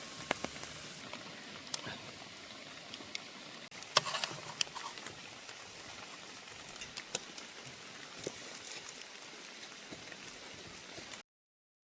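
Steady rain with scattered drops ticking close by, and a short cluster of louder ticks about four seconds in. The sound cuts off abruptly just before the end.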